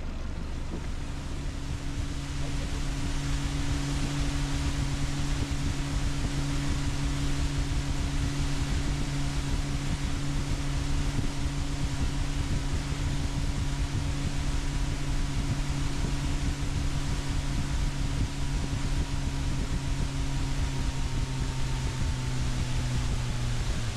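A fishing boat's motor runs steadily under way, with a rush of wind and water. Its pitch drops a little near the end as it eases off.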